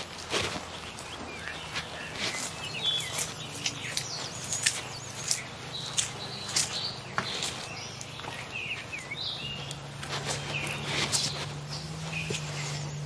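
Birds chirping outdoors, over a string of irregular sharp knocks and rustles. A low steady hum comes in about nine seconds in.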